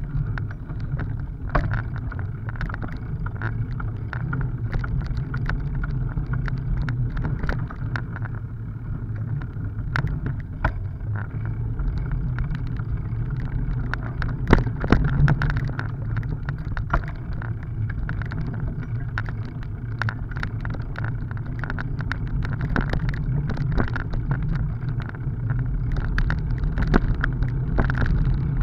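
Bicycle rolling over broken, wet asphalt: a steady low rumble of the tyres, with frequent clicks and rattles as the bike jolts over cracks and potholes, the sharpest knocks about halfway through.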